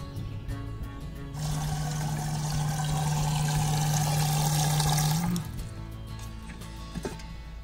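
Water running from a camper tap into an aluminium kettle for about four seconds, with a steady low hum while it runs, then shut off sharply. A light click follows near the end.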